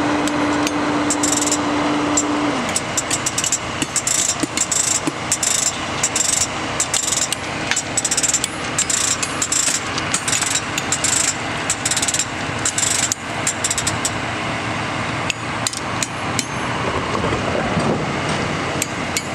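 Repeated sharp metal-on-metal strikes and clinks from hand tools working a steel rail, over the steady running of track-maintenance machinery. A steady machine hum drops in pitch and stops about two and a half seconds in.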